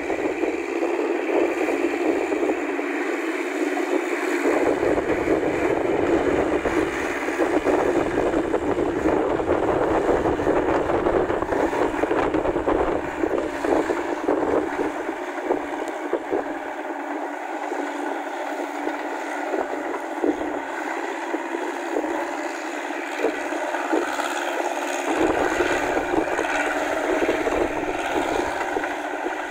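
Massey Ferguson 185 tractor's four-cylinder diesel engine running steadily under load as it drives its tracks and rotary tiller through flooded paddy mud, with wind gusting on the microphone.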